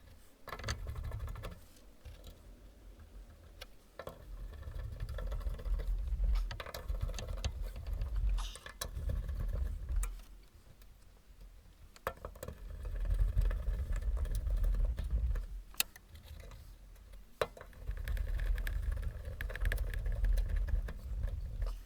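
Scattered clicks, knocks and rattles of hands-on work fitting a fuel tank to a Land Rover, over four stretches of low rumbling a few seconds long.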